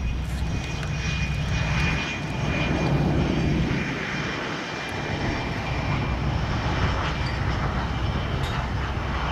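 Jet engines of an F/A-18C Hornet running, its twin General Electric F404 turbofans making a continuous rumble that swells slightly a few times, with a faint high whine over the first four seconds.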